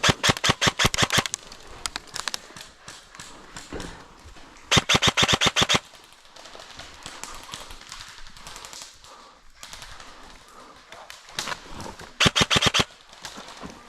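Airsoft rifle fired in full-auto bursts: rapid trains of sharp cracks, about fifteen a second. Three bursts of about a second each: one at the start, one about five seconds in and a shorter one near the end, with fainter scattered shots in between.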